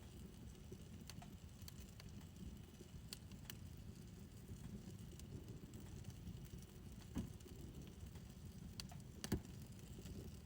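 Fire pit fire burning: a low steady rumble of flames with scattered small crackles, and two louder pops in the second half, the last and loudest near the end.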